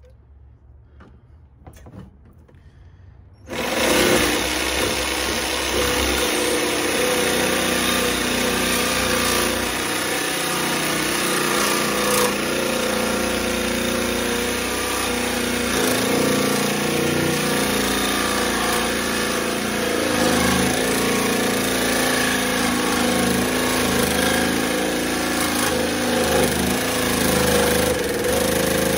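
Cordless jigsaw starting up about three seconds in, then running steadily as it saws through metal wire shelving, with a worn-out blade in it.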